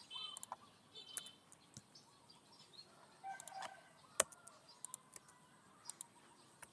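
Faint bird calls in the background, with short chirps near the start and about a second in. Sharp computer-mouse clicks are scattered throughout, the loudest about four seconds in.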